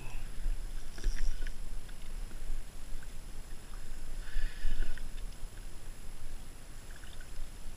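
Water lapping and splashing against a kayak hull, with a few short splashes, over a steady low rumble of wind on the microphone.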